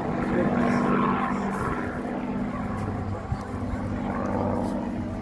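Propeller-driven aircraft flying overhead, a steady engine drone.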